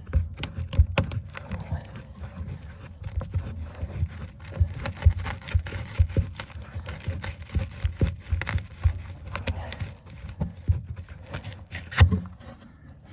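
Irregular knocks, scrapes and rustling of someone moving about on bare floorboards and handling things, with no machine running.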